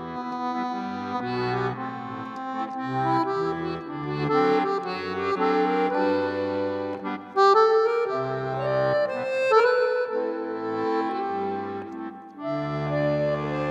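Background music: an accordion playing a tune over a bass line.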